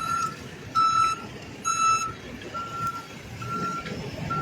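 A vehicle's backup alarm beeping, a steady single-pitched beep repeating a little faster than once a second, with an engine rumbling under it.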